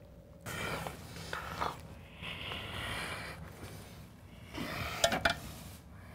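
Rustling handling noise with two sharp clicks about five seconds in.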